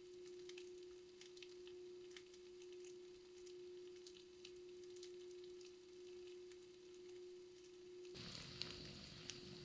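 Faint, quiet crackling like a pan beginning to sizzle on a camp gas stove, over a steady low hum. About eight seconds in a louder hiss sets in.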